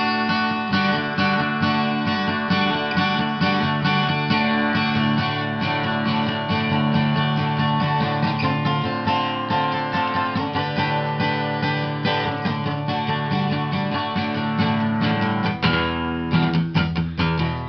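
Background music played on acoustic guitar, plucked and strummed notes over a steady bass line.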